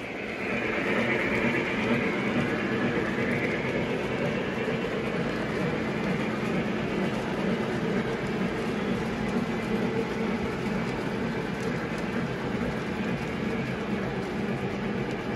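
Model train running along the track with a steady rumble of motor and wheels, getting louder about half a second in.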